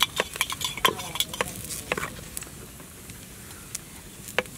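Steel spoon stirring and clinking inside a steel tumbler, dissolving salt in water: a quick run of clinks over the first two seconds, then fewer, with a single tick near the end. Under it a faint steady hiss.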